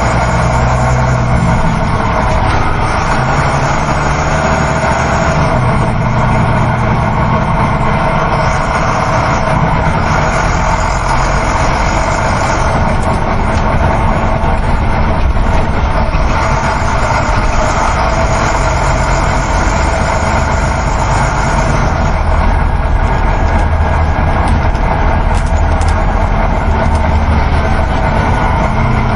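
Inside a moving coach bus: the engine's steady hum mixed with continuous road noise.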